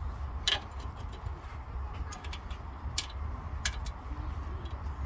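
Irregular sharp metallic clicks and taps of a spanner and Allen key on the top nut of a newly fitted stabiliser drop link, over a steady low rumble.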